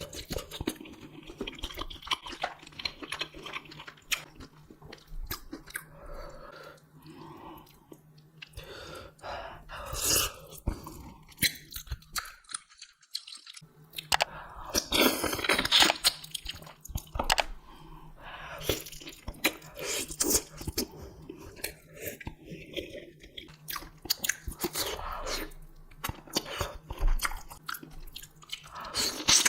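Close-miked eating: a person chewing and biting, with crunchy bites and wet mouth sounds coming irregularly. The sound drops out briefly about 13 seconds in.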